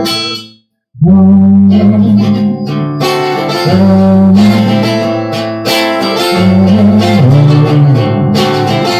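Guitar strumming chords in an instrumental break of a song, with no singing. The sound cuts out completely for about half a second near the start, then the guitar comes straight back in.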